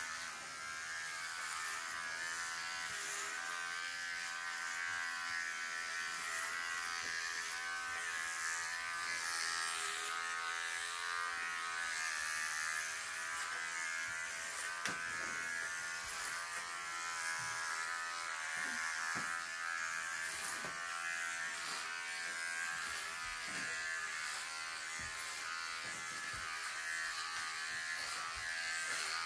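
Electric hair clippers with a number-three guard buzzing steadily as they are run through short hair, the pitch wavering slightly as they go, with a few faint clicks.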